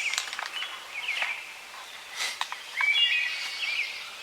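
Songbirds singing: short chirping phrases, a louder run of them about two to three seconds in.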